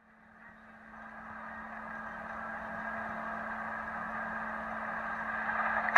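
Steady vehicle running noise, fading in over the first couple of seconds and then holding level, with a constant low hum underneath.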